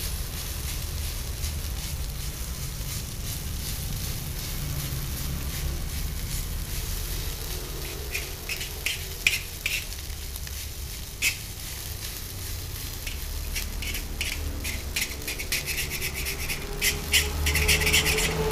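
Egg fried rice sizzling in a large steel wok as it is stirred and turned with a metal utensil. From about halfway, sharp clicks and scrapes of the utensil against the wok join the sizzle, coming thickest near the end.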